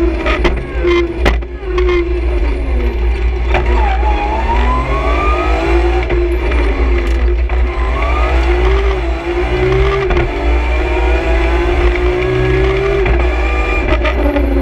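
BMW M3 E46 CSL straight-six engine at full rally pace, heard from inside the cabin. It revs up several times and drops back sharply at the gear changes, over a steady low road and cabin rumble. A few sharp cracks sound in the first few seconds.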